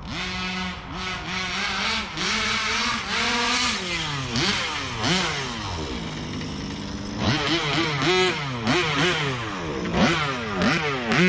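HPI Baja 5B RC buggy's two-stroke gas engine revving up and down over and over, with a run of quick throttle blips in the second half.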